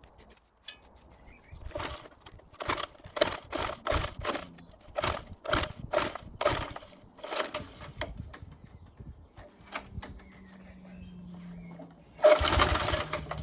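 Mountfield Empress 16 lawn mower being pulled over on its recoil starter: a quick run of about ten rasping strokes as the engine turns over, then a louder, longer pull near the end. The engine does not fire.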